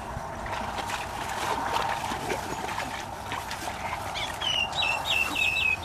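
Feet wading and splashing through shallow muddy water, with scattered small splashes and sloshes. Near the end, a run of about five short, high, repeated animal calls.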